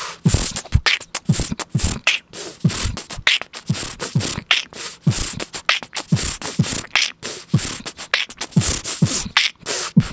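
Beatboxing into a FiFine K658 dynamic microphone: a rapid, steady rhythm of kick-drum thumps, snare-like snaps and crisp hi-hat hisses, testing how the microphone handles plosive sounds.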